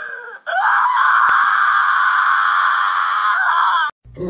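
A Shiba Inu screaming in protest while restrained: a short cry, then one long, harsh, rasping scream of about three and a half seconds that cuts off suddenly near the end.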